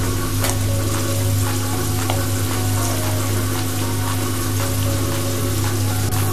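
Avarekai (hyacinth bean) pod shells deep-frying in hot oil on a medium flame: a steady sizzle with scattered crackles and pops.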